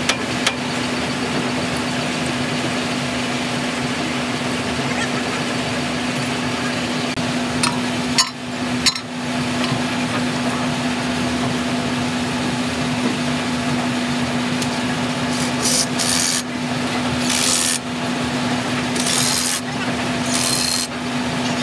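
Tools scraping and rubbing on the metal parts of a wheel loader's wheel hub, over a steady low hum. Several short hissing bursts come in the last few seconds.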